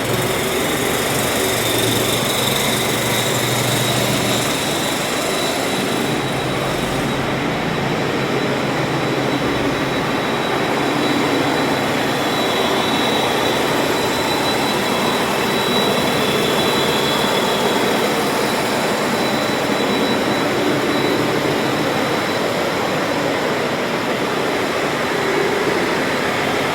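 Tatra 815 6x6 military truck driving: a steady, loud mix of diesel engine, drivetrain and road noise, with a faint steady high whine, holding an even pace without revving up or down.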